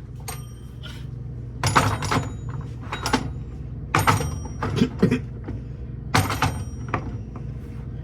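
An egg knocked several times against the rim of a bowl to crack it: sharp taps in small groups about a second apart, each leaving the bowl ringing with a high tone, over a steady low hum.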